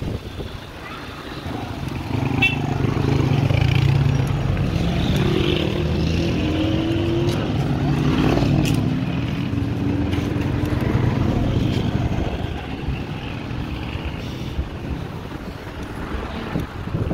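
A motor vehicle engine runs close by with a steady low rumble. It grows louder about two seconds in and eases off over the last few seconds.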